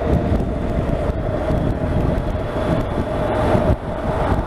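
Honda NC750X motorcycle on the move: a steady engine drone under heavy wind rumble on a microphone that has slipped down, with a brief dip in level near the end.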